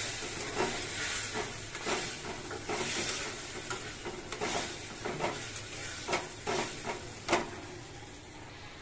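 A spatula stirring and scraping green-tomato chutney in a karahi on a gas flame, the chutney sizzling. The scraping strokes come about two a second and die down near the end.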